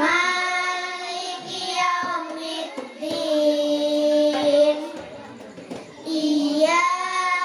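Young girls chanting a short surah of the Quran through microphones in melodic recitation, in phrases of long held notes with brief pauses between.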